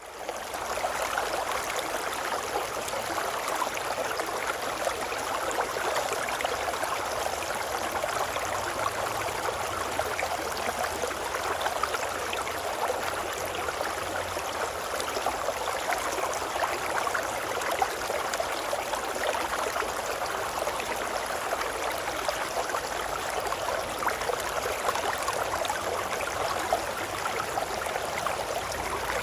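Shallow river water babbling and rushing steadily, fading in over the first second.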